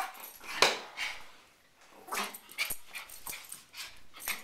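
Small dog barking once sharply about half a second in, then giving a few fainter yips.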